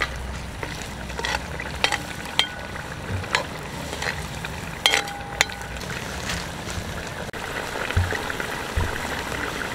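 Curry sauce simmering and sizzling in a pan, with several sharp clinks of a utensil against the pan, some ringing briefly, as fish pieces are put in.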